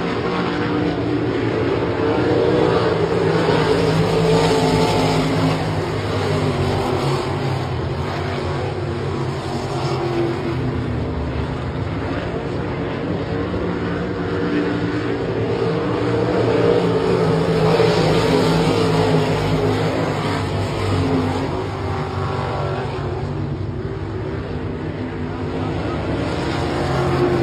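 IMCA RaceSaver sprint cars' 305 cubic-inch V8 engines racing around a dirt oval at full throttle. The pack's engine note swells as the cars pass the grandstand, about four seconds in and again about eighteen seconds in, then fades as they go down the far side.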